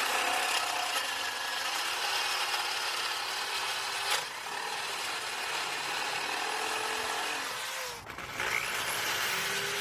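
Power drill boring a 7/8-inch hole into a Telecaster's wooden body for the output jack, cutting steadily. It stops briefly about eight seconds in, then starts again.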